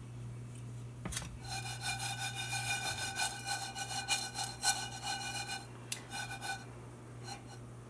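Nonstick skillet slid back and forth on a glass-ceramic cooktop to toss sliced almonds as they dry-toast: a rhythmic scraping rasp with a ringing squeal in it. It starts about a second in and stops around six and a half seconds.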